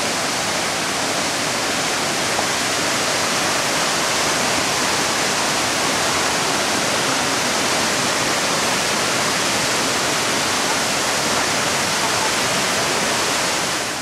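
Siklawa, the tall Tatra waterfall of almost 70 metres, pouring down its rock face: a steady, even rush of falling water.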